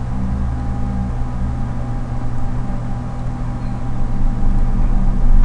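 A steady low hum with a faint hiss, growing somewhat louder about four seconds in.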